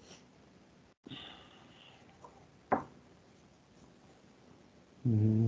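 Quiet room hiss from a computer microphone, broken by one sharp click a little before the middle. Near the end a man makes a low, drawn-out wordless hum while thinking, held on one pitch for about a second.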